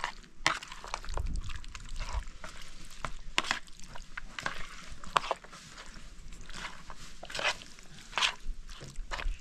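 Irregular clicks, knocks and scrapes, scattered through, with a low rumble about a second in.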